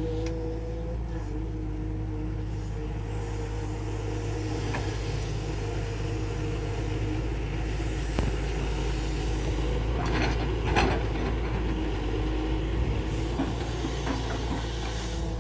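Tata Hitachi excavator's diesel engine running steadily with a steady hydraulic whine, broken by a few short clanks and rattles, the loudest about ten to eleven seconds in.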